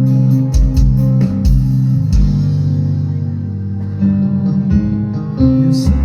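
Live band playing through a PA at a sound check: guitar over sustained bass notes, with sharp hits in the first couple of seconds.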